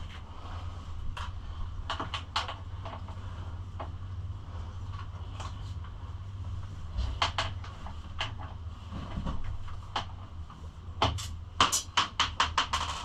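Hand tools working the nuts and bolts on a pit bike: scattered metallic clicks and knocks, then a quick run of about eight clicks near the end, over a steady low hum.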